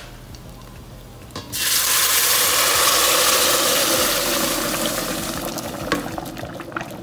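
Cooked carioca beans in their broth poured into hot oil and browned garlic in a stainless steel pot: about a second and a half in, a sudden loud sizzle and splash as the liquid hits the hot oil, slowly dying down as the pouring goes on.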